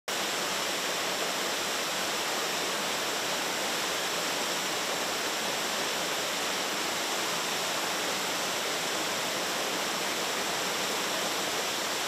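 A 25 m waterfall pouring in heavy flow: a steady, even rush of falling water and spray.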